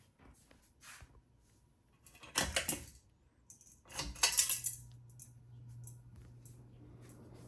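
Metallic clinking and rattling, then about four seconds in a ceiling fan motor is switched on and a steady low mains hum begins as it starts to turn.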